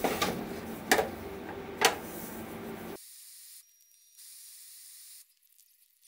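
Laser-cut birch plywood birdhouse pieces being handled: two light knocks about a second apart over a steady hiss. About halfway through the sound drops to a faint high hiss.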